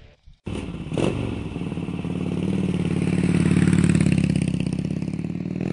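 Harley-Davidson Dyna Wide Glide's air-cooled 103 cubic inch Twin Cam V-twin running through its over-and-under exhaust. It cuts in suddenly about half a second in with a short surge about a second in, then settles to a steady, pulsing beat that grows louder in the middle.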